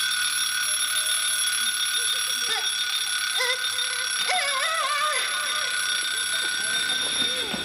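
Loud electronic alarm from the villain's stopwatch timer going off at the end of its countdown: a steady, shrill high-pitched tone held without a break, cutting off at the end. Faint voices can be heard beneath it around the middle.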